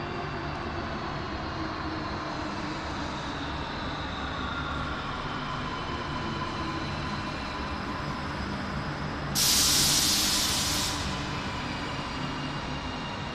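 Electric commuter train pulling into an underground station and slowing to a stop, with a steady rumble and a motor whine falling slowly in pitch. About nine seconds in, a loud hiss of compressed air lasts about a second and a half as the air brakes vent.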